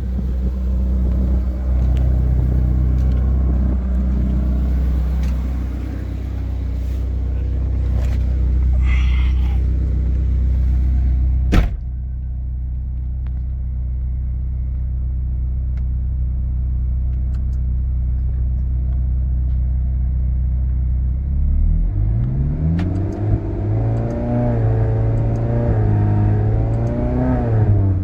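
Ferrari California's V8 engine running with a steady low hum that carries the strange noise supposedly costing $50,000 to fix. There is one sharp click about halfway through. About three-quarters of the way in, the engine is revved up, held and let fall back.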